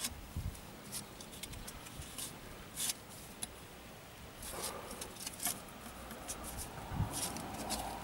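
Scattered small clicks, taps and rubbing of a rubber-gloved hand handling the metal internals of an opened refrigeration compressor.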